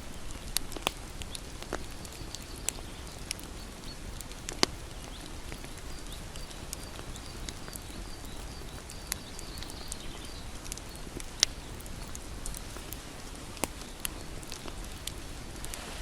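Bonfire burning with a steady low rush and irregular sharp crackles and pops from the burning wood, about a dozen in all. A faint high chirping repeats rapidly for several seconds through the middle.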